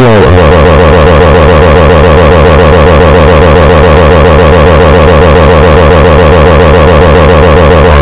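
Heavily distorted, clipped electronic sound effect: a loud, harsh buzz pulsing rapidly and evenly. It starts suddenly with a brief falling sweep.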